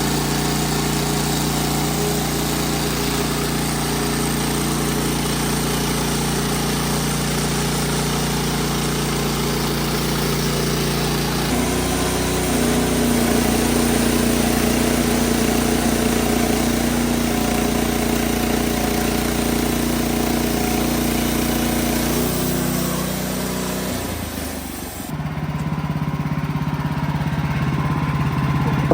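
Wood-Mizer LX55 portable sawmill's engine running steadily. Its pitch shifts about a third of the way in and again later, and the level dips briefly shortly before the end.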